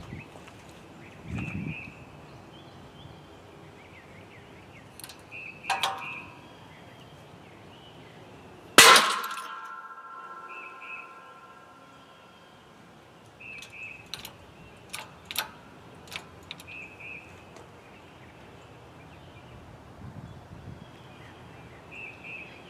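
A single loud metallic bang with a ringing tail of two to three seconds, about nine seconds in, as a seized piston in a Studebaker Commander inline-six block, held under load in a hydraulic shop press, suddenly gives way. A smaller ringing click comes a few seconds before it, and a scatter of light metallic clicks follows.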